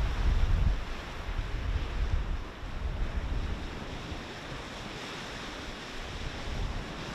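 Sea surf washing steadily on a beach. Wind buffets the microphone in low gusting rumbles over the first couple of seconds, then eases.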